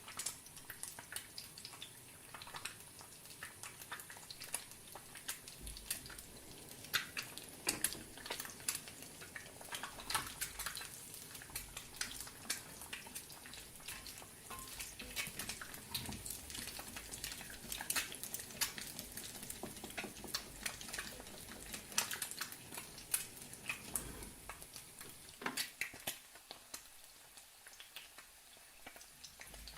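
Eggs frying in a pan: a steady sizzle with many sharp crackles and pops of spitting fat, and a few low knocks, likely a spatula or the pan.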